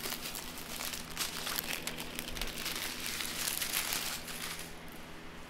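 Small plastic bags of diamond-painting drills crinkling as a strand of them is handled and shifted, dying down near the end.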